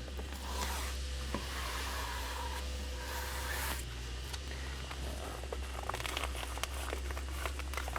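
Hands working a padded safety cover and its Velcro strips onto a bed panel. There are two longer rasping swishes in the first half, then a run of small taps and clicks.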